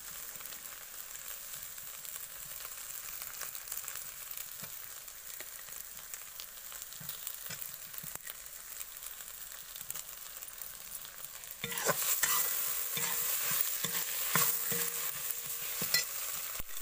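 Potato pieces frying in oil and onion masala in a kadhai, sizzling steadily, with a metal spatula stirring and scraping against the pan. The stirring gets louder and busier about twelve seconds in.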